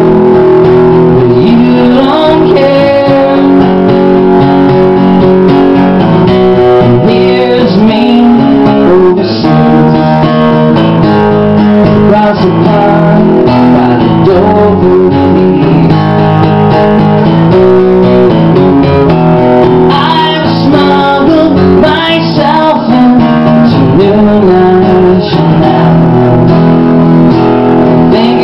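Acoustic guitar strummed steadily in a live solo performance, with a man's voice singing over it at times.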